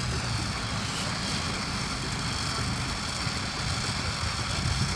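Off-road 4x4's engine running steadily at low revs, a low hum.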